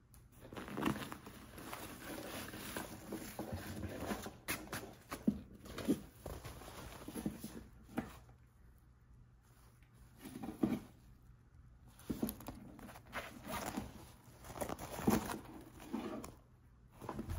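A nylon backpack being lifted and handled: irregular fabric rustling with scattered small knocks and clicks, pausing briefly twice.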